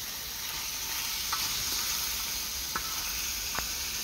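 Pieces of grass carp and silver carp sizzling in hot oil on the steel disc of a Firedisc cooker, a steady frying hiss with a few small pops.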